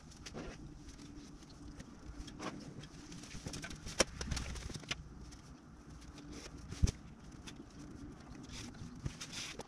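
Scattered light knocks, taps and rustling from hands working in a fibreglass RV shower stall, with two sharper knocks about four and seven seconds in, over a faint steady hum.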